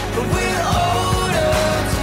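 A pop-rock song: a singer's melody over a steady drum beat.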